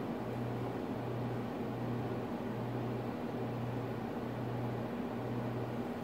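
Steady low hum over an even hiss, the hum dropping out briefly about once a second.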